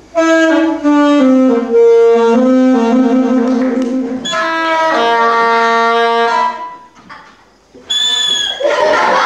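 Saxophone played by a child blowing into the mouthpiece: a run of held notes stepping downward, then a second run after a brief gap, with a higher, brighter note near the end.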